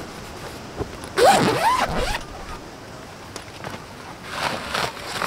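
Zipper on a fabric storage box pulled open in one long pull about a second in, followed a few seconds later by fabric rustling as the folded blankets inside are handled.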